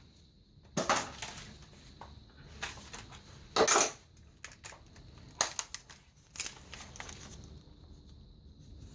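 Metal tools and parts clinking and clanking in five or six irregular sharp knocks, the loudest a little before the middle, as the 10 mm bolt holding a bracket is undone.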